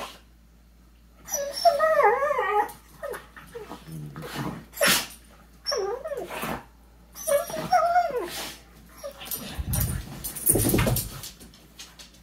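Dogs play-fighting: high, wavering whines and whimpers come in several short runs, mixed with sharp clicks and scuffling. A low rumbling scuffle comes near the end.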